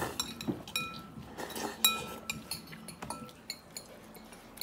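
Metal forks clinking and scraping against ceramic bowls while noodles are eaten: a string of sharp clinks, some with a short ringing tone, the loudest about two seconds in.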